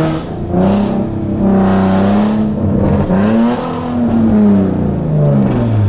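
Nissan 370Z Nismo's V6 exhaust, straight-piped from the headers back with test pipes in place of the catalytic converters and no resonators or mufflers, under way. The engine note holds fairly steady, climbs again about three seconds in, then falls away near the end.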